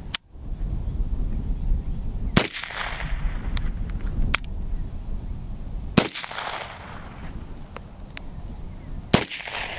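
A Type 14 Nambu pistol firing 8mm Nambu in slow single shots a few seconds apart. The three loudest cracks each trail a short echo, with sharper clicks between them.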